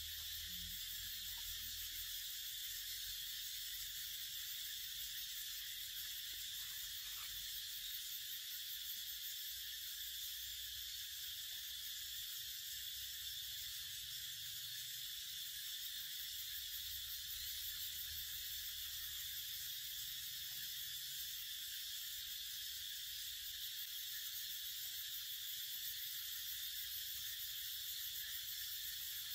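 Steady high-pitched chorus of insects, an unbroken hiss-like drone that does not change in level.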